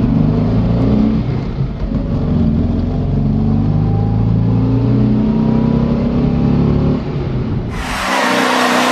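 Toyota Sports 800's 800 cc air-cooled flat-twin engine heard from inside the cabin while driving, running under load with its revs shifting up and down. Near the end it changes abruptly to the car heard from outside, louder and with a strong hiss over the engine.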